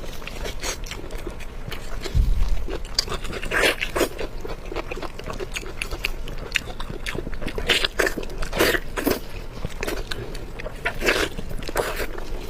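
Close-miked eating: a person chewing and biting food, with a run of short crunches. There is a low thump about two seconds in.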